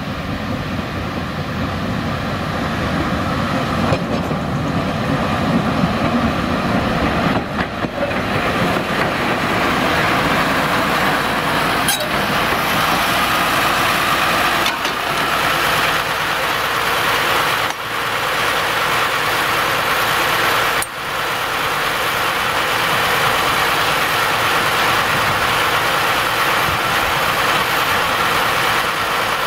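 Diesel engine of a small narrow-gauge diesel locomotive running steadily. About eight seconds in, the sound changes to a steadier, closer idle, with a few light clicks.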